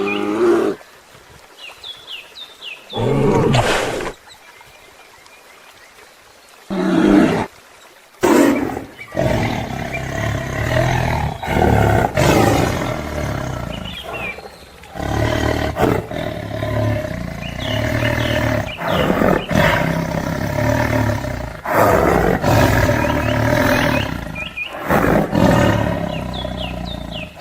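Deep animal roars and growls: a few short bursts, then near-continuous roaring from about eight seconds in, with short high chirping calls scattered through it.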